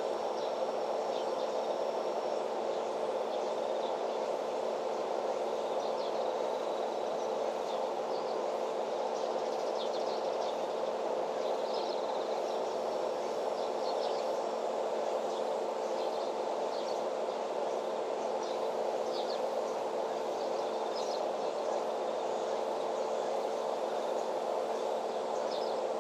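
Steady outdoor ambience: a constant low hum, with faint, scattered high chirps from birds or insects.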